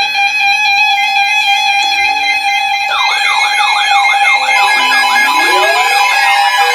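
Several weather radio receivers sounding their alarms at once for an incoming severe thunderstorm warning: a chord of steady alert tones, joined about three seconds in by warbling siren-style alarm tones sweeping up and down several times a second, with a rising siren wind-up near the end.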